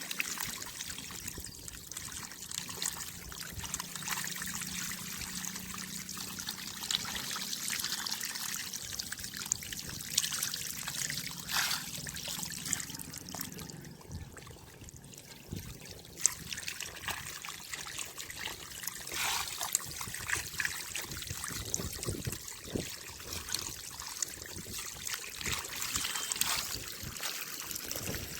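Water splashing and trickling, with many small irregular splashes and crackles, as a crowd of fish churns the surface while feeding.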